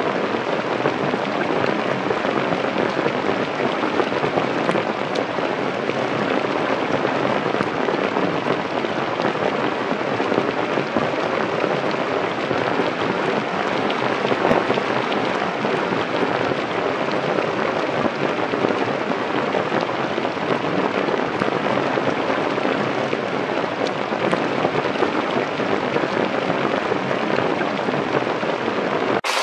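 Rain falling steadily on forest leaves and rock: an even hiss.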